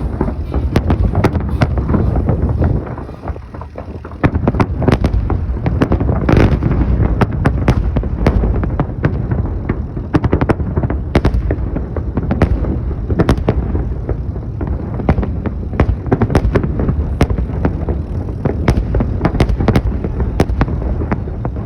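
Fireworks salute going off: a dense, irregular run of sharp bangs and crackles over a continuous low rumble, with a short lull about three seconds in.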